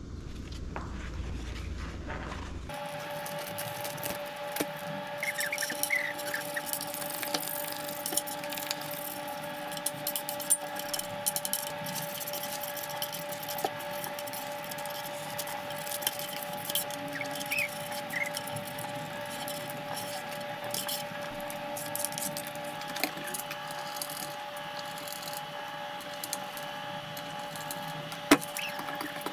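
Vinyl contact paper crackling and rustling as it is pressed and scraped flat with a plastic squeegee, over a steady two-tone hum. One sharp click near the end.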